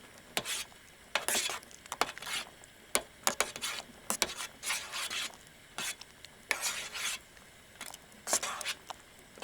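A spoon stirring a pot of fish soup, with repeated short scraping strokes and light clinks against the pot.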